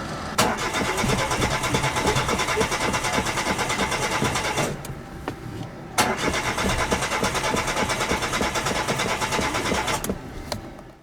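Chevrolet Matiz starter motor cranking the engine twice, each attempt about four seconds long and opening with a click, with a short pause between; the engine does not catch.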